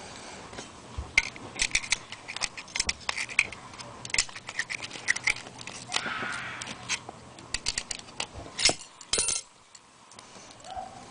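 Small steel parts of a Master Lock No. 5 padlock being worked apart by hand: a string of sharp metallic clicks and taps, a short scrape about six seconds in, and a louder double click near the end.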